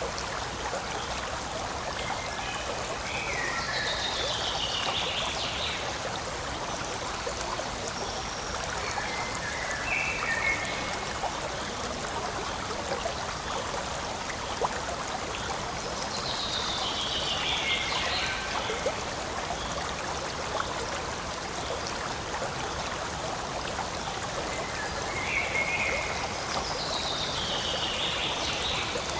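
Forest stream running steadily, a constant rushing and trickling of water. A high falling call sounds three times, about twelve seconds apart.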